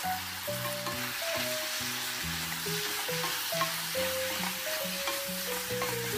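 Spicy pork and vegetables sizzling in a hot frying pan as they are stirred and tossed with a wooden spatula and chopsticks, giving a steady hiss with a few light knocks of the utensils.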